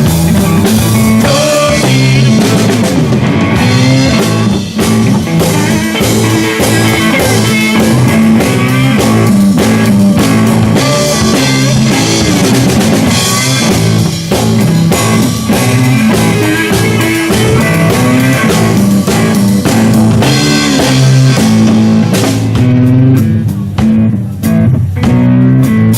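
Blues-rock band playing an instrumental passage between sung lines: guitar over drum kit and bass, with the high end thinning out near the end.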